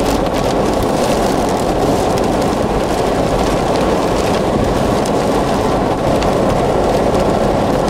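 Steady rushing of strong wind and rain against a car, heard from inside the cabin near a tornado.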